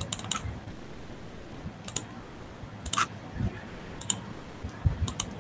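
Sharp clicks from operating a computer: a quick run of three, then single clicks and pairs about once a second, with a couple of soft low bumps in between.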